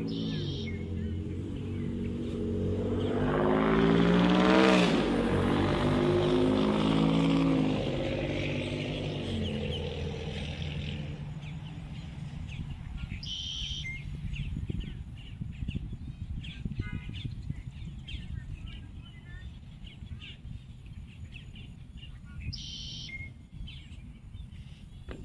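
A motor vehicle drives past, its engine growing louder and then dropping in pitch as it passes about five seconds in, before fading away. A bird gives a short high call three times, near the start, about halfway and near the end, over steady low traffic rumble.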